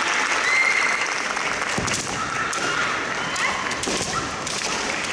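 Spectators applauding, with voices in the crowd and a few sharp knocks about two and four seconds in.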